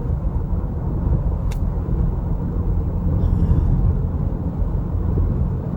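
Steady road and engine rumble heard inside a moving car's cabin, with a single small click about one and a half seconds in.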